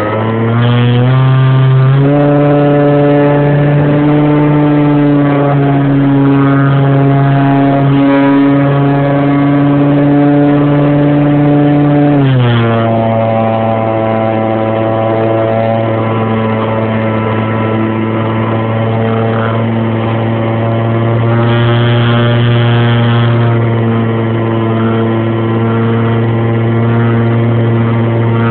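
Electric motor and propeller of an R/C Cessna 182 model plane, heard close up from a phone mounted on the plane's side: a steady whine that steps up in pitch about two seconds in and drops back lower about twelve seconds in.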